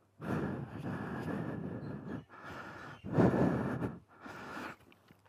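A rider's breathing heard close on a Sena 10C Evo helmet headset microphone, several breaths in a row, the third the loudest.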